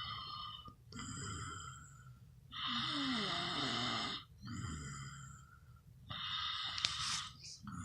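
Snoring in a steady breathing rhythm: a louder rasping breath comes about every three and a half seconds, with a softer breath between.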